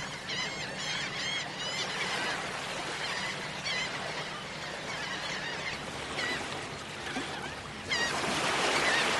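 Gulls calling again and again over the hiss of breaking surf, with a wave washing in louder near the end.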